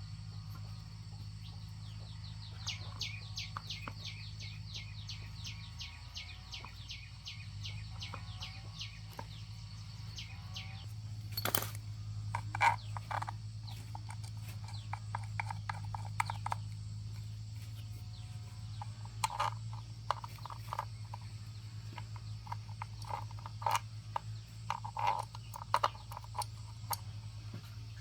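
Outdoor rural ambience: a small animal calling in a quick run of short high chirps, about three or four a second, followed by scattered knocks and clatter, the sharpest a single knock near the middle, over a steady low hum.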